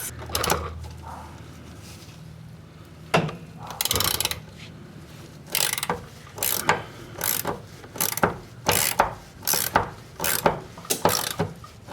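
Ratchet wrench clicking in repeated short strokes, about two clicks a second, as it turns the nut off a transmission crossmember bolt. A single scrape comes about four seconds in, before the steady ratcheting starts.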